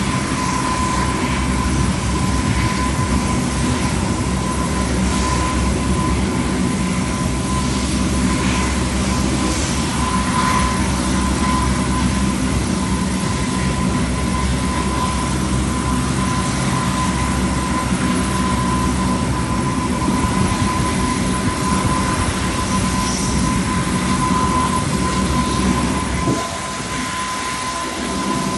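P-3K2 Orion's four Allison T56 turboprop engines running on the ground: a steady drone with a constant high whine. About 26 seconds in the low part of the drone drops away and the sound becomes quieter.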